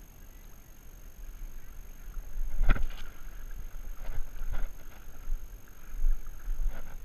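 Splashing and sloshing in shallow water, with one sharp splash nearly three seconds in and a few smaller ones after, over a low rumble of wind on the microphone.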